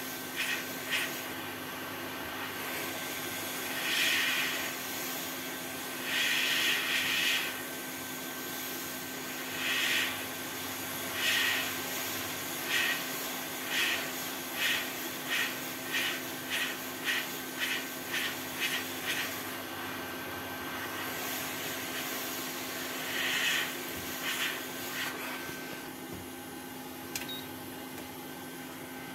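Hot air rework gun blowing steadily on a laptop motherboard to heat solder, a steady hiss with a constant hum underneath. Through the middle comes a run of short, louder, higher-pitched noises, about two a second.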